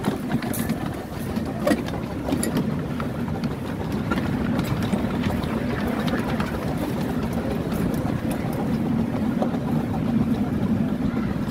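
Miniature railway train running behind a coal-fired steam locomotive, heard from the riding car: a steady rumble of wheels on the track with a few clicks in the first few seconds.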